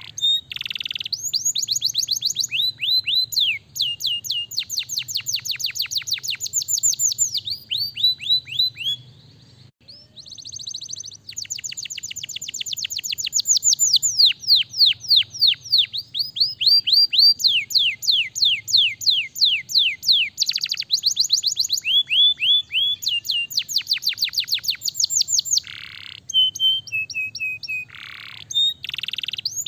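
Domestic canary singing in long, fast trills, each a run of rapid repeated notes that sweep downward in pitch, phrase after phrase. There is a brief pause about ten seconds in.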